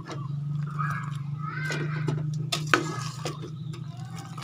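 A perforated metal skimmer clinks and scrapes against a stainless steel pot as wet boiled genjer greens are stirred and lifted in the water, with one sharp clink a little past the middle. A short high wavering call sounds twice in the first half, over a low steady hum.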